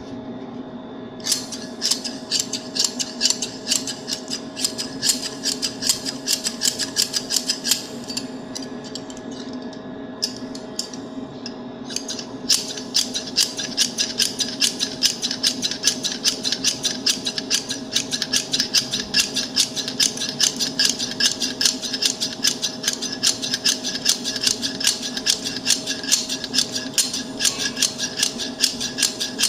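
Metal scissors snipping in a fast, even run of sharp clicks, which thin out for a few seconds in the middle and then resume, over a steady background hum.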